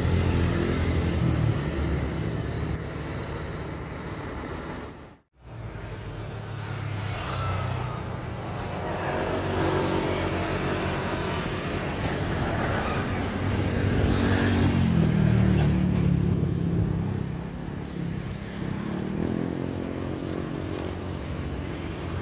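Jet airliner engines: first an IAE V2500-powered Airbus A320 climbing away at takeoff power, then, after a brief cut, an Airbus A321-231's IAE V2500 engines rumbling as it lands on the runway. The rumble builds to its loudest about two-thirds through, with a tone that rises and then falls.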